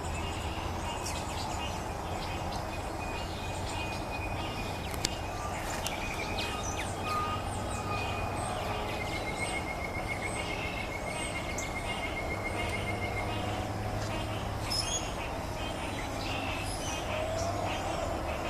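Pond ambience: birds chirping and calling in many short notes, with a steady trill for a few seconds around the middle, over a constant low rumble.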